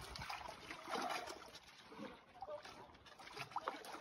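Water splashing and trickling around a spiny sea urchin being cleaned by hand, with small irregular clicks and splashes, loudest about a second in.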